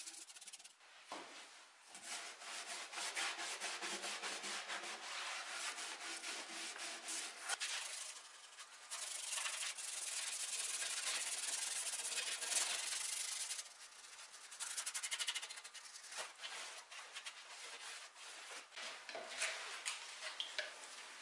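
A paintbrush scratching over wood in quick repeated strokes as a finish is brushed on.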